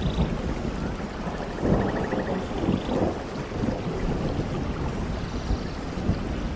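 Heavy rainforest rain with thunder rumbling low underneath, the rumble swelling a little under two seconds in.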